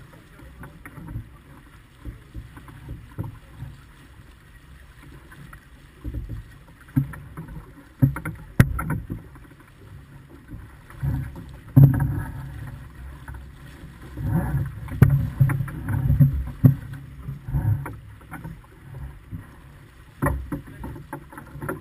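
Wind buffeting the microphone and water rushing along the hull of a small sailing yacht under way, heard as irregular low rumbling gusts that grow stronger in the second half, with a single sharp click about eight and a half seconds in.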